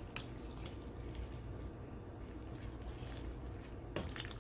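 Ladle stirring cabbage soup in a stainless steel pot, with a few light clicks against the pot, over a low steady hum.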